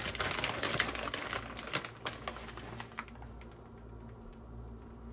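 Crinkly plastic bag of shredded mozzarella, crackling in rapid dense clicks as cheese is pulled out. About three seconds in it drops to a few faint ticks while the cheese is sprinkled over the dish.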